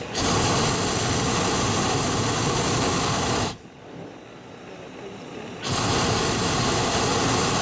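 Hot air balloon's propane burner firing in two blasts, each starting and stopping abruptly: the first lasts about three and a half seconds, and the second starts about two seconds after it ends.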